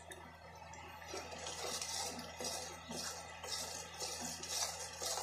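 Steel spoon stirring and scraping a thick masala in a steel kadai, a soft scraping stroke about twice a second, as the masala is fried until it releases oil. A steady low hum runs underneath.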